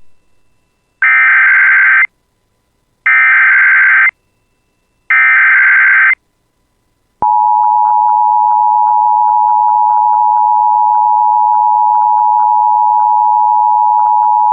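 Emergency Alert System tornado warning: three one-second bursts of SAME digital header data, about two seconds apart, encoding the tornado warning. A little over a second later, the steady two-tone EAS attention signal starts and holds.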